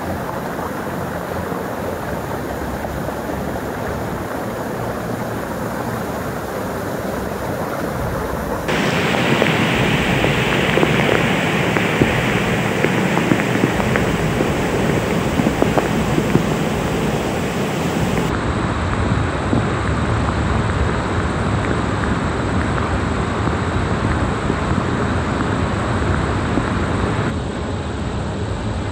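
Steady rush of floodwater and rain with wind on the microphone, in several spliced clips that change abruptly about nine, eighteen and twenty-seven seconds in. The stretch between nine and eighteen seconds is loudest, with a few sharp knocks.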